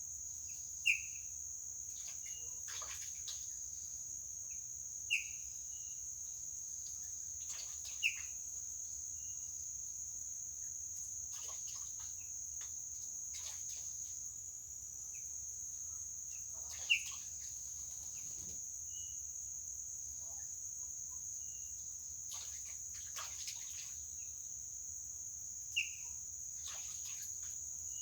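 A steady, high-pitched insect trill of crickets runs without a break, while a bird gives short, sharp chirps five times, with fainter calls between them.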